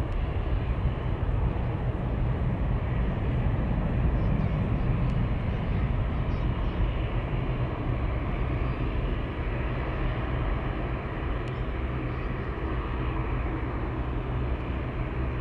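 Boeing 767-300ER airliner climbing out after takeoff: the steady, low rumble of its two jet engines at climb power, easing slightly in loudness in the second half as the plane draws away.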